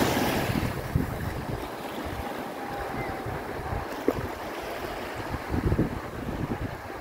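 Wind buffeting a phone's microphone in uneven gusts over the steady wash of small waves running up a sandy beach, with one short knock about four seconds in.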